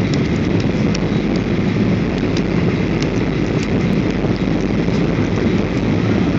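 Steady, loud airliner cabin noise, engine and airflow heard from inside the passenger cabin on the descent to land, with a few faint ticks in the first few seconds.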